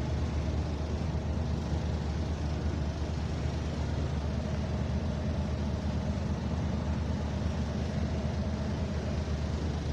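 Steady running noise of bus HV115, heard from inside the cabin: an even low drone with a faint steady whine above it, unchanging throughout.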